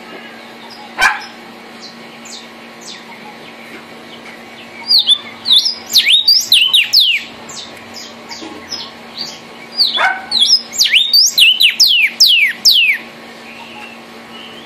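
Vermilion cardinal (cardenal guajiro) singing two bouts of loud, quick downslurred whistles, one about five seconds in and another about ten seconds in, each lasting two to three seconds. A single sharp knock about a second in.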